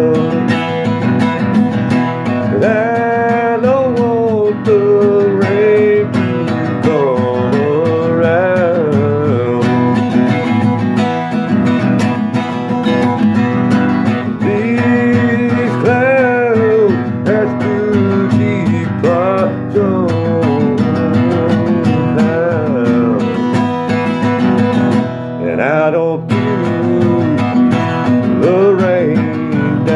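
A man singing with his own acoustic guitar strummed along, a continuous solo voice-and-guitar performance.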